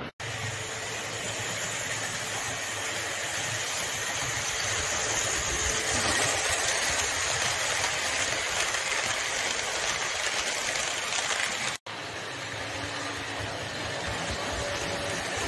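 Electric model trains running on the track: a steady rolling whirr of wheels and motors, cutting out briefly twice.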